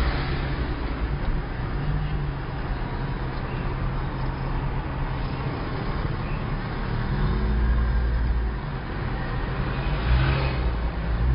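A car's engine and tyre noise heard from inside the cabin while driving, a steady low rumble.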